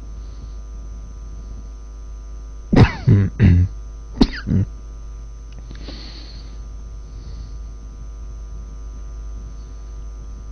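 A man coughing: a quick fit of four or five coughs about three to four and a half seconds in, over a steady electrical hum.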